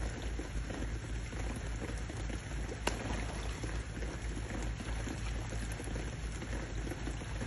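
Steady patter of rain on the water surface, mixed with splashing as an otter swims and a man wades beside it. A single sharp click about three seconds in.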